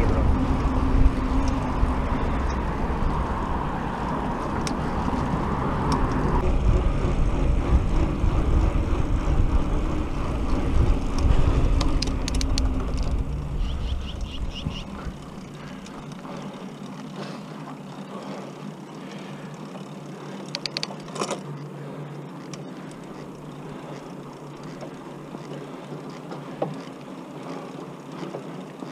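Bicycle tyres rolling on pavement, with a heavy rumble of rushing air for about the first half that drops to a quieter, even hiss about halfway through. A few faint clicks are scattered through it.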